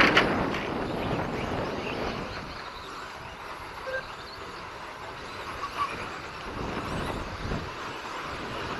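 Wind rumbling on the microphone, strongest at the start and easing off after about two seconds, over the faint running of radio-controlled model trucks racing on the track.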